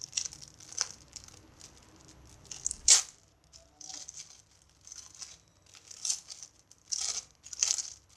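A homemade squishy's packaging crinkling and rustling in the hands as it is opened, in short separate bursts, the loudest about three seconds in.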